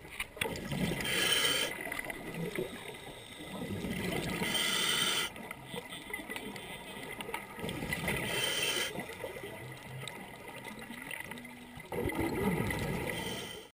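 Scuba diver breathing through a regulator underwater: three hissing breaths about three and a half seconds apart, with crackling and gurgling bubbles in between, heavier near the end.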